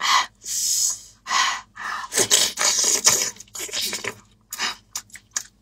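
Mouth sounds of someone eating braised pork knuckle: a run of noisy chewing and slurping sounds, breaking into shorter smacks near the end.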